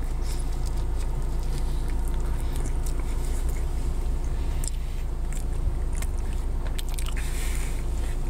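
A person chewing a mouthful of soft, cream-filled eclair, with small wet mouth clicks and smacks, over a steady low hum inside a car.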